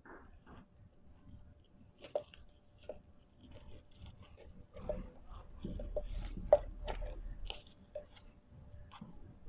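Hands working a potted pitcher plant: rustling leaves and crackling potting soil pressed down in a plastic pot, with irregular small clicks, the loudest about six and a half seconds in. A low rumble of handling noise runs through the middle.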